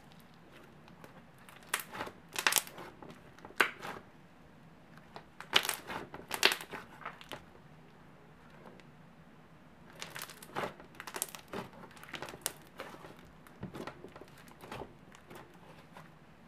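Thick icee slime being squeezed, pressed and stretched by hand, giving off crisp crackling pops in irregular clusters. The loudest snaps come about two and six seconds in, with a quieter patch after that and another run of crackles from about ten to fifteen seconds in.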